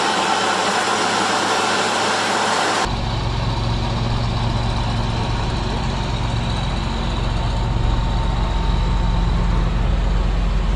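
A steady rushing noise for about three seconds, then a John Deere tractor's diesel engine running steadily close by: a deep even hum with a faint high whine over it.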